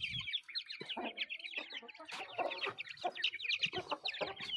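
A flock of young aseel chicks peeping continuously in quick, high chirps, with a few lower chicken clucks mixed in.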